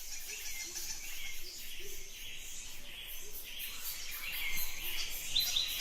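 Natural ambience of insects trilling steadily in a fast even pulse, with scattered small bird chirps.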